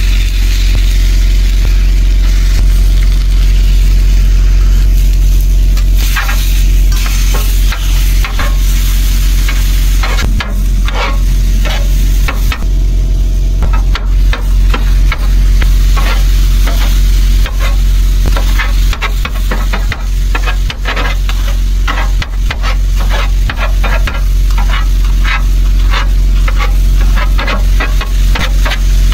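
Chicken sizzling on a portable propane tabletop griddle while a metal bench scraper chops and scrapes it against the flat-top, a quick run of clacks from about six seconds in. A steady low rumble runs under it all.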